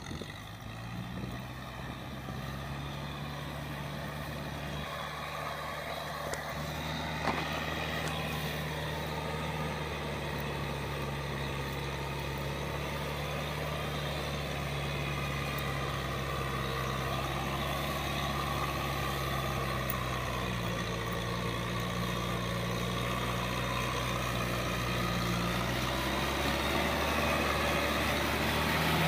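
Kubota M6040SU tractor's four-cylinder diesel engine running steadily under load while its rear rotary tiller churns wet paddy mud, gradually getting louder as it comes closer.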